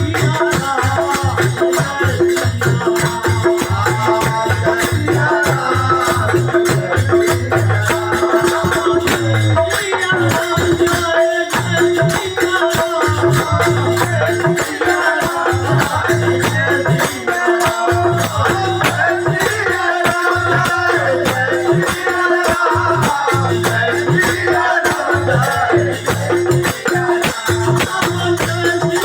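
Devotional bhajan music: a rattle or shaker keeps a steady beat under a held drone note, with a wavering melody line and a regular low pulse.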